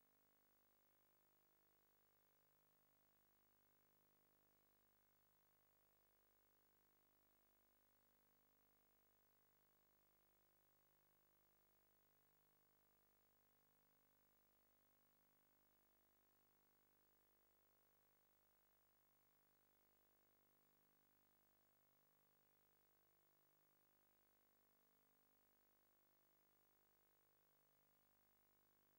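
Near silence: only a very faint steady hum and hiss.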